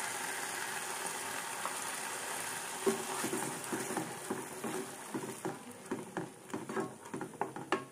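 Tomato purée sizzling as it hits the hot oil and onion masala in a kadhai, stirred with a wooden spatula. The sizzle dies down after about five seconds while the spatula scrapes the pan in short strokes.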